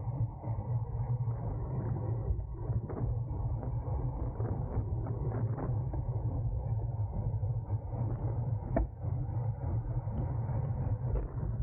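Wind rumbling over the microphone of a camera riding on a racing bicycle at speed in a road race, with road and tyre noise underneath. A few faint clicks, and one sharper click about nine seconds in.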